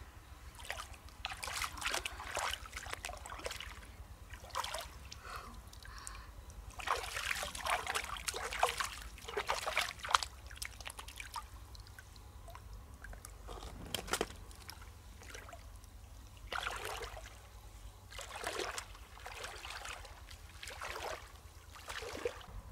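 Shallow stream water sloshing, trickling and splashing in several spells as hands rummage through the muddy bottom feeling for freshwater mussels.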